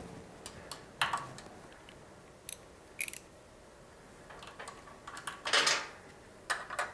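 Hand tools on the mini bike's engine mounting bolts as they are loosened: a few sharp metallic clicks about a second apart, and a short rasping scrape about five and a half seconds in.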